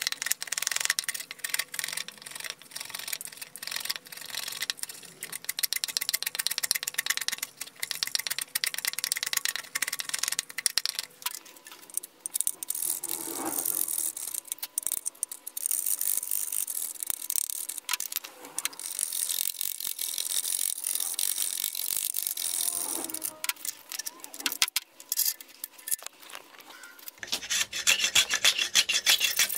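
Hand file rasping on the steel of a forged hatchet head in many quick, uneven strokes.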